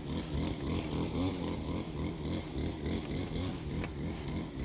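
Small petrol-engine power tool running steadily, its engine note wavering slightly up and down.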